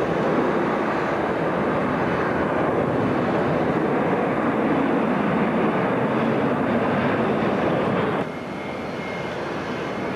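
Jet engines of a three-engined wide-body airliner at take-off power as it lifts off and climbs out: a loud, steady rushing noise. About 8 s in it cuts off abruptly to quieter, more distant jet engine noise.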